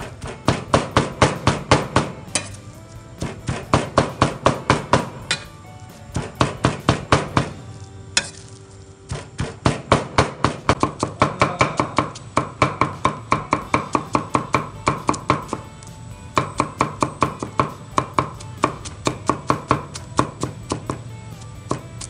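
A cleaver chopping fast on a round wooden chopping board, mincing garlic, about five strokes a second in runs of a second or two with short pauses.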